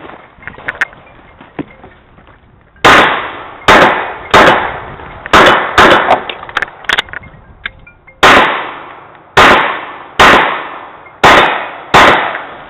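Handgun gunfire: eleven pistol shots in two strings, six in quick succession and then, after a short pause, five more, each shot ringing out and fading.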